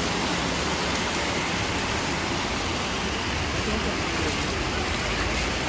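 Heavy rain pouring steadily onto flooded streets, an even hiss that holds without let-up.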